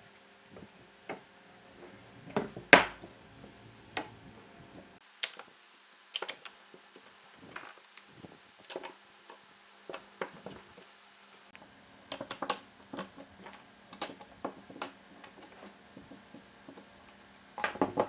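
Irregular knocks and taps of wood and hand tools being handled in a workshop, with louder knocks about two and a half seconds in and near the end.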